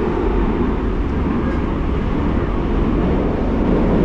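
Metro train running between stations, heard from inside the car: a steady low rumble of wheels and running gear.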